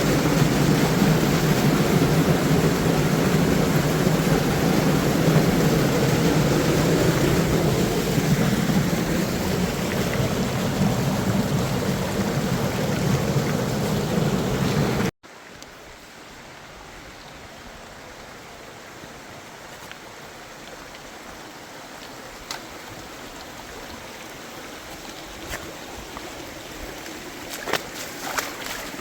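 Rushing water as a loud, steady roar for about fifteen seconds, then an abrupt cut to a much quieter flow of water that slowly grows louder, with a few light clicks near the end.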